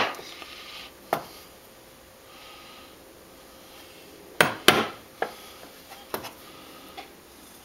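Hammer tapping a nail into a red cumaru hardwood board to punch small centre-mark dimples. There is a single tap about a second in, then two sharp taps in quick succession past the middle, followed by a few lighter knocks.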